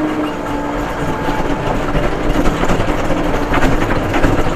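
Case 580M backhoe loader's diesel engine running steadily, with a constant whine over the engine's dense rumble.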